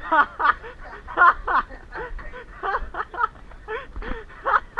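People laughing in short, repeated bursts of chuckling.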